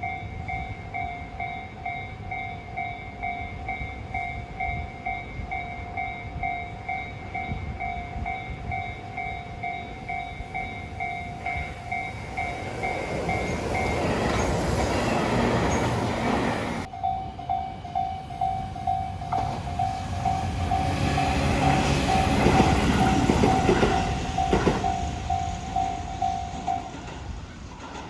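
Japanese level-crossing warning bell ringing in quick, even strokes while a Tobu 8000 series train runs through, its wheels clattering over the rails. The bell falls briefly silent partway through and stops near the end.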